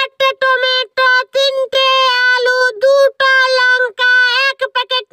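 A high, pitch-shifted cartoon-style voice talking quickly in short syllables, held on nearly one pitch.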